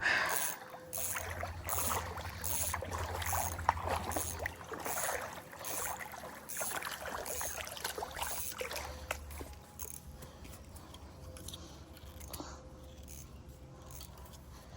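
Creek water splashing and sloshing as a person wades into the deep hole, the splashes dying away after about nine seconds, over a low steady hum.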